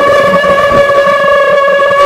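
Brushless motors and propellers of a 5-inch FPV freestyle quadcopter whining at a steady pitch in flight, heard from the camera on the frame with a rushing wind noise underneath.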